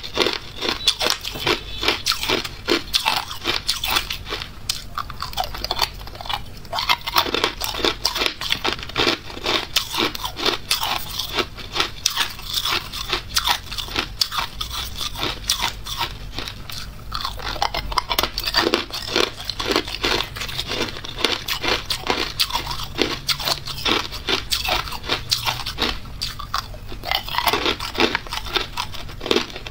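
Hard ice cubes being bitten and chewed close up: continuous rapid crunching and cracking.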